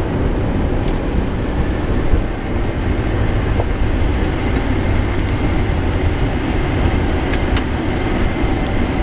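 Steady low rumble inside a Boeing 737NG cockpit as the airliner rolls on the ground after landing: engine and airframe noise with the wheels running over the pavement. Two brief clicks come about seven and a half seconds in.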